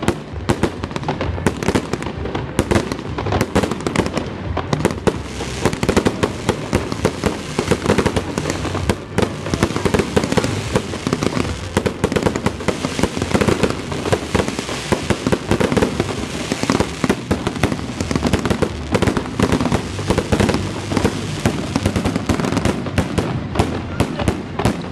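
Fireworks salute: many shells bursting in the sky in a dense, unbroken run of bangs and pops.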